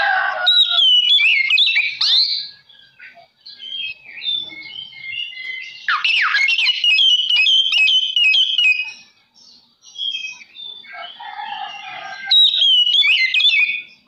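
Oriental magpie-robin singing: fast, varied whistled phrases mixed with harsh rasping notes, in three bursts with short pauses between them.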